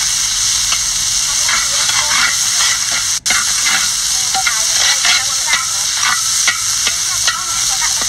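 Chopped seasonings sizzling in hot oil in a large metal wok, with a metal spoon scraping and stirring against the pan. The sound cuts out for an instant about three seconds in.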